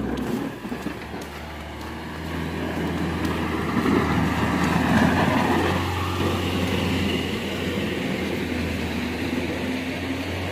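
Snowplow truck with a salt spreader driving past, its engine running and its noise growing to its loudest about halfway through, then slowly fading.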